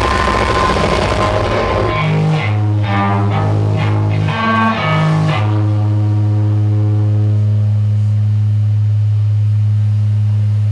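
Live rock band playing through amplifiers: about two seconds of the full band together, then a riff of separate low guitar notes, then from about halfway a single low note held steadily, droning.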